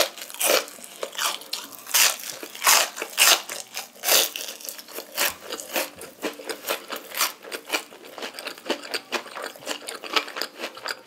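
Close-miked ASMR eating: a person biting and chewing crunchy food, with loud, irregular crunches several times a second.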